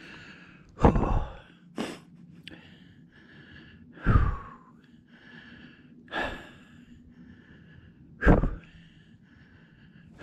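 A man breathing heavily and excitedly close to the microphone: deep breaths out about every two seconds, four of them, with a brief sharp sniff between the first two.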